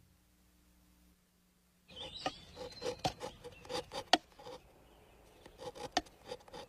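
Irregular light clicks and rubbing from small metal cups being handled on a counter, starting about two seconds in after a short silence.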